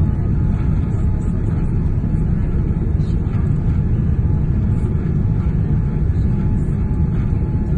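Steady low rumble inside a jet airliner's cabin on descent for landing: engine and airflow noise, with a faint steady hum above it.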